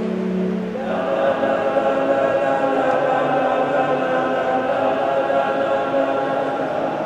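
Male choir singing sustained chords; about a second in, a higher chord comes in and the sound fills out.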